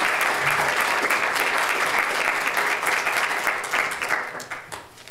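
Audience applauding: dense clapping that thins out and dies away near the end.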